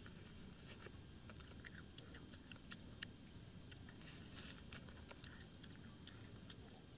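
Faint chewing, sucking and lip-smacking as chicken legs are eaten: a scatter of small wet clicks, with a short louder slurp about four seconds in.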